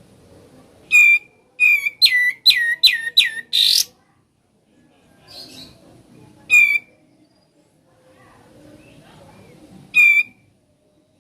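Kapas tembak bulbul singing loud, sharp whistled notes that sweep downward. Two single notes are followed by a quick run of about five in a row, then two more single notes spaced several seconds apart.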